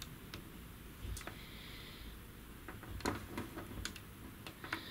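Faint scattered clicks of fingers pressing the front-panel power buttons of a Harman Kardon HS500 DVD home-theatre unit, a dozen or so spread unevenly. The unit gives no sound in response: it does not power up.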